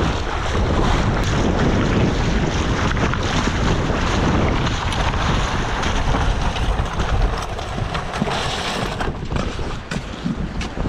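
Wind buffeting the camera's microphone in a steady, loud rumble, with shallow water lapping at the shore underneath. It eases a little near the end.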